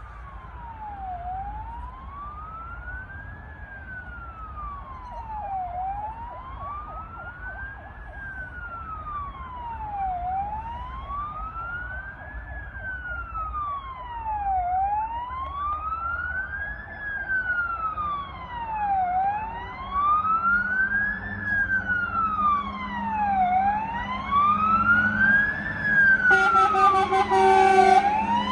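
Approaching fire engines' wailing siren, rising and falling slowly about every four and a half seconds and growing steadily louder, with the trucks' diesel engines coming up underneath in the second half. A short steady horn blast sounds near the end.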